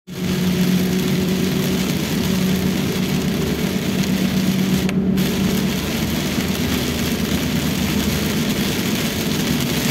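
Inside a Toyota Rush's cabin on the move in heavy rain: a steady hiss of rain and wet road under the tyres over a steady low engine hum. About halfway through, the high hiss briefly drops out for a moment.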